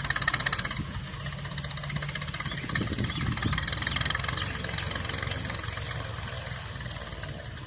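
Farm tractor engine running steadily, with a rapid clatter in the first second.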